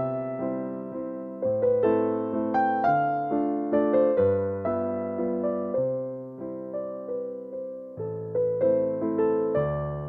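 Background piano music: a gentle melody of struck notes that fade away, over low bass notes that come in every couple of seconds.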